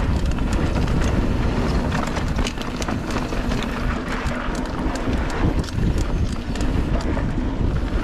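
Polygon Siskiu T7 full-suspension mountain bike rolling fast down a dirt singletrack. Wind rushes over the microphone, the tyres run on packed dirt and leaf litter, and the bike gives off many small rattles and clicks over the bumps.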